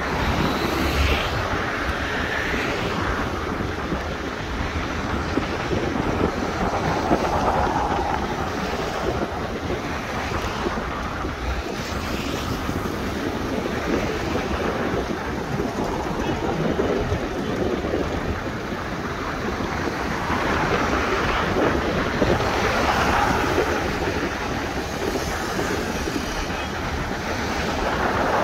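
Wind buffeting the microphone: a steady rushing noise with low rumbling gusts that swell and ease.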